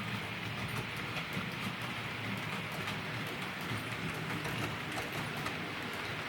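OO gauge model train running along the track: a steady motor hum with a rapid patter of small clicks from the wheels on the rails.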